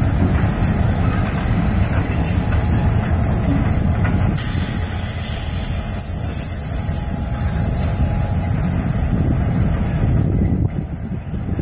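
Canadian National diesel locomotive running as it pulls a string of freight hopper cars slowly along the track: a steady low rumble with rolling wheel noise from the cars.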